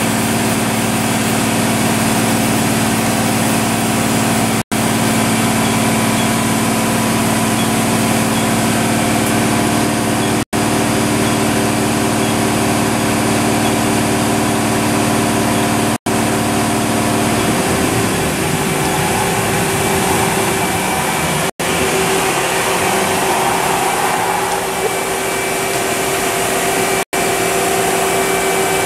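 Mori Seiki NT1000/SZM CNC turning and milling center running under power, a steady machine hum with several held tones. About two-thirds of the way through, the lower tones stop and a higher tone carries on. The sound drops out for an instant every five or six seconds.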